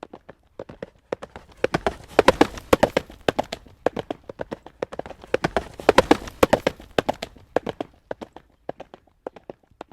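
Horse hooves trotting on a hard road, a rhythmic clip-clop that grows louder twice, about two seconds in and again about six seconds in, then thins out near the end.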